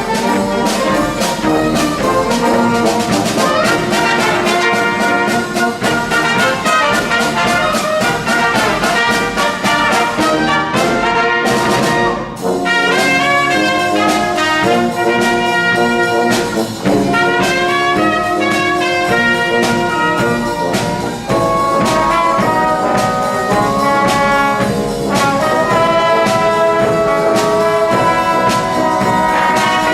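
Wind band playing with the brass section to the fore, trumpets and trombones over a steady beat of drum strokes, with a crash and a short break about twelve seconds in.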